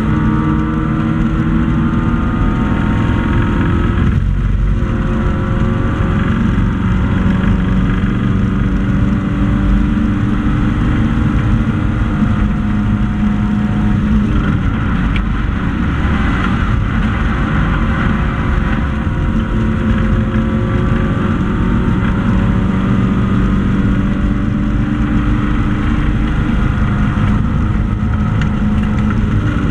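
Classic hatchback race car's engine heard from inside the cockpit, running hard at high revs, its pitch rising and falling as it works through the gears, with a brief lift about four seconds in.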